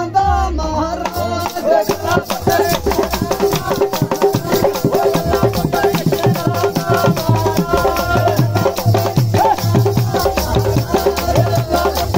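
Dogri folk music: a fast, even rhythm of jingling metal percussion over a beating hand drum, with a melody line above.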